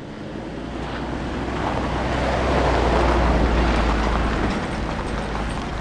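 A ute towing a loaded car trailer drives past over gravel: a steady low engine note with tyre noise, building to its loudest about three seconds in as it comes close, then easing off.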